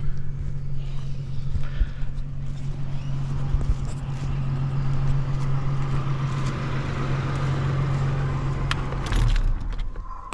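Engine idling steadily at a constant pitch, with a few small knocks and rattles over it; it cuts off about nine seconds in.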